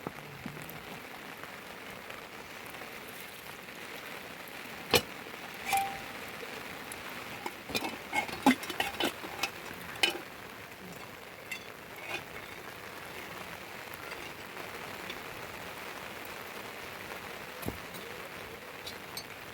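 Steady rain, with a scattered run of sharp knocks and clinks from about five to twelve seconds in.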